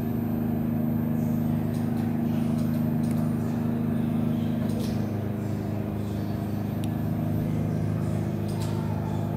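Flight simulator's aircraft engine sound playing through speakers: a steady drone, with a couple of faint clicks.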